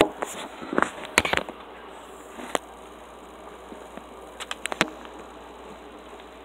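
Steady background hiss with scattered sharp clicks and taps, several in quick clusters about a second in and again near five seconds.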